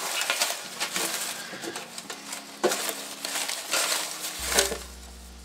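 Folded paper slips rustling and crinkling as a hand rummages through them and handles one, in irregular clusters of crackling.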